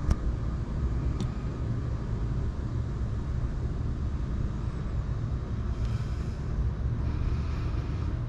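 A steady low rumble of outdoor background noise, with two light clicks in the first second or so.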